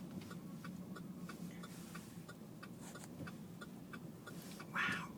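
A vehicle's indicator flasher clicking steadily about twice a second over the low, steady drone of the cabin, with a brief louder rustling noise near the end.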